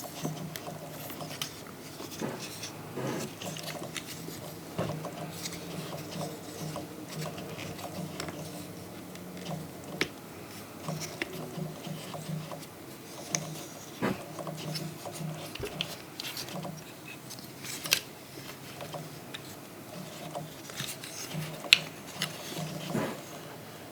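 Hands handling a plastic Transformers action figure and its packaging: scattered sharp clicks and taps of plastic parts over light rubbing and rustling, with a louder snap now and then, such as near the end.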